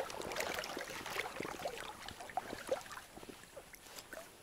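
Water sloshing and gurgling close by, with small irregular splashes and bubbling plinks that thin out and get quieter toward the end.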